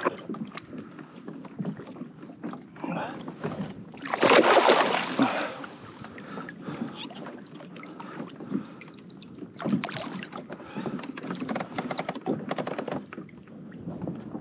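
Water splashing and sloshing as a hooked reef fish thrashes at the surface and is grabbed by hand beside a kayak. There is one loud splash about four seconds in, and a run of smaller splashes and knocks later on.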